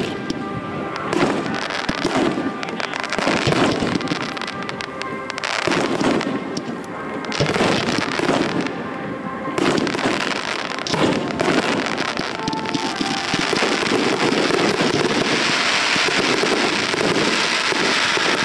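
Aerial fireworks going off in a rapid series of bangs and crackles, with music playing underneath. From about two-thirds of the way through, the bursts merge into a dense, continuous crackling.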